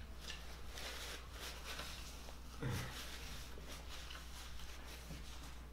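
Faint rustling and wiping of a paper napkin against the face and nose, with one short low voice sound about two and a half seconds in, over a steady low hum.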